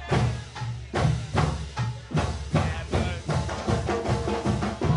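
Marching band music: a drum beat hitting about twice a second, with some held horn notes partway through.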